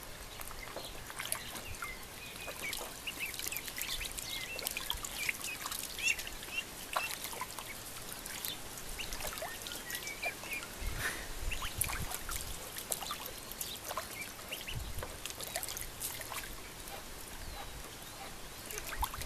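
Ducklings splashing and dabbling in a shallow trough of water, with drips and trickles throughout and short high peeping calls scattered through.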